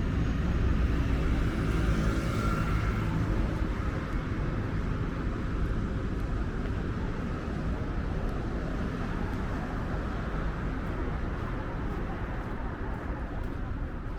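Wind buffeting the microphone over city street noise, with a motor vehicle passing in the first few seconds.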